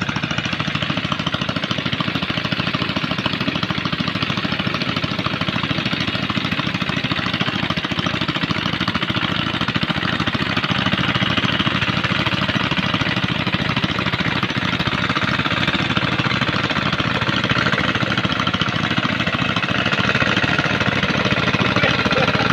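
Small farm tractor's engine running steadily with a rapid knocking chatter as it tills a flooded rice paddy, getting a little louder about halfway through.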